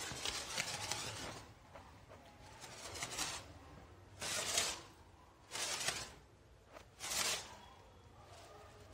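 Kite string being hauled in hand over hand to bring the kite down: a rustling swish, then a series of short swishes about every second and a half.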